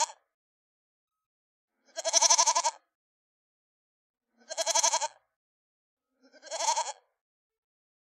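An animal bleating: three quavering bleats, each under a second long, about two seconds apart, starting about two seconds in, with the last one shortest.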